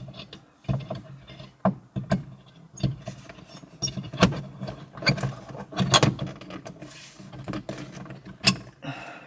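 Hands working plastic parts of the rear-view mirror mount and dash cam housing: irregular clicks, taps and light rattles, with the loudest knocks about four, five and six seconds in.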